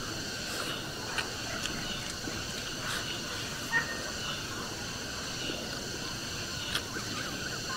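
Steady high chirring of insects in the surrounding vegetation, with a few faint clicks and taps of chopsticks against a rice bowl while eating.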